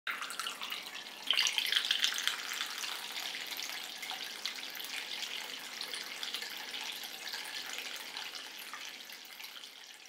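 Water trickling and splashing in a small cement tabletop fountain, falling from flower-shaped spouts into a mushroom-cap basin. It grows louder about a second in, then slowly fades toward the end.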